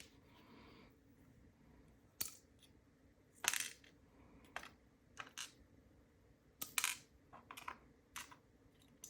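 Small metal padlock parts clicking and clinking as springs and pin tumblers are picked out of a disassembled padlock with a tool and set down: light, short clicks, irregularly spaced.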